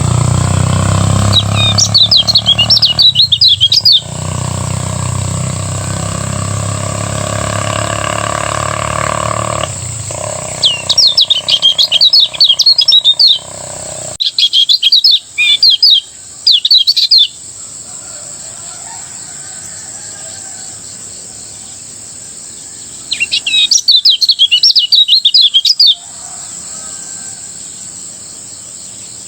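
Kecial kuning white-eye singing its rapid, fast-running ngejos song in four loud bouts of quick high twitters, each about two to three seconds long. A steady high whine runs under it, and a low rumble fades out about ten seconds in.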